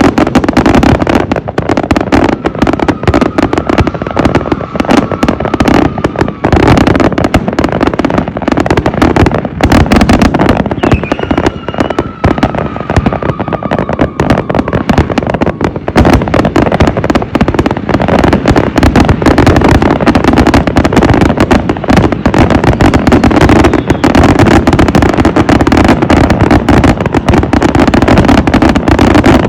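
Fireworks grand finale: a dense, loud barrage of aerial shell bursts and crackling, bang after bang with no pause. A faint falling whistle is heard twice, early on and near the middle.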